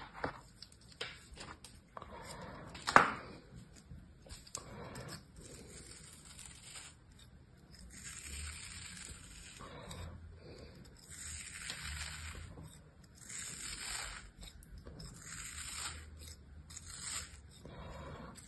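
Kinetic sand crumbling and crunching as a hand breaks up moulded sand, with one sharper crunch about three seconds in. From about eight seconds in, a small knife scrapes and slices through a block of kinetic sand in repeated strokes about a second long.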